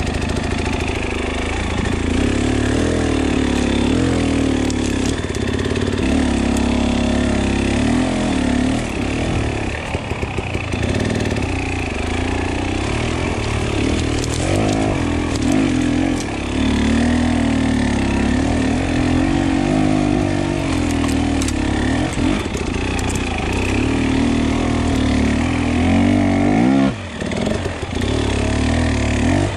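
KTM 300 EXC two-stroke dirt bike engine running at low revs, the revs rising and falling with repeated throttle blips. The throttle is shut off briefly a couple of times near the end.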